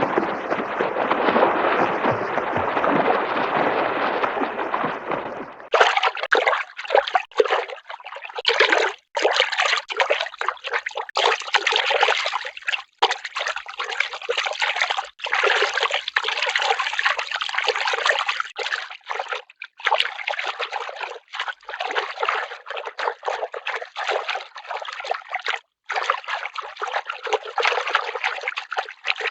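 Cartoon library sound effects: a full rushing noise, then about six seconds in a sudden switch to a thinner, choppy trickling, splashing water sound that keeps breaking off and starting again.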